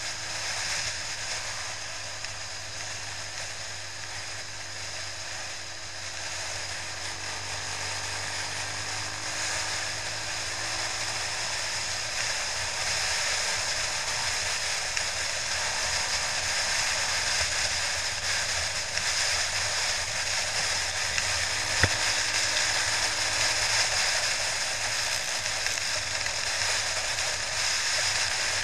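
Steady rush of wind buffeting a helmet-mounted camera on a moving motorcycle, with the bike's engine running faintly underneath. A single sharp tap sounds about three quarters of the way through.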